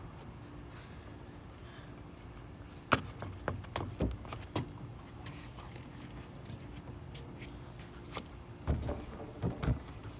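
Scattered knocks and thumps of footsteps on a playground climbing structure, close to the microphone: a few about three seconds in and a small cluster near the end.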